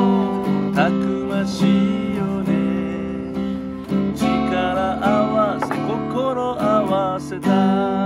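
A man singing a slow song to his own strummed steel-string acoustic guitar, with sustained, wavering sung notes over steady chords.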